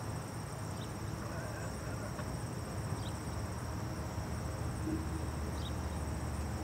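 Insects trilling steadily at a high pitch over the low, steady rumble of a diesel freight locomotive running in the distance.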